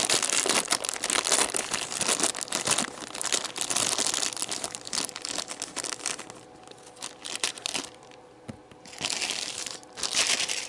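Packaging crinkling and rustling as model kit parts are handled: dense for the first six seconds or so, then a few short bursts near the end.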